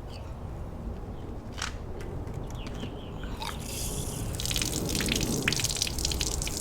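Liquid pouring and splashing with drips and trickles, starting about three and a half seconds in and growing louder.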